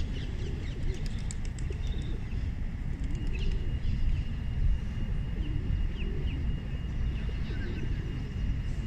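Small birds chirping and twittering over a steady low rumble, with a thin high whistle-like tone running underneath from about a third of the way in.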